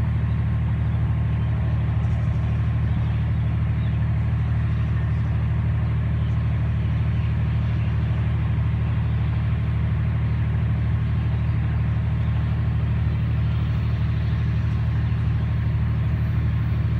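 Steady low drone of an idling diesel engine on a standing passenger train, holding an even level throughout.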